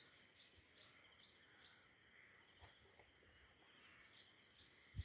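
Near silence: faint outdoor background with insects chirping a few times a second over a steady high-pitched hiss.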